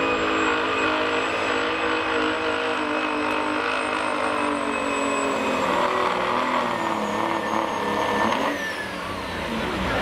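Pro stock semi truck's turbocharged diesel engine at high, steady revs under full load, pulling a weight-transfer sled, with a high turbo whistle over it. About eight and a half seconds in the engine lets off and the whistle slides down.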